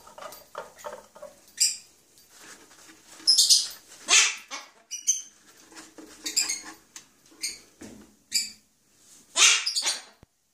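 Cockatoo giving a series of about eight short, harsh squawks and chattering calls, the loudest in the middle and a longer one near the end.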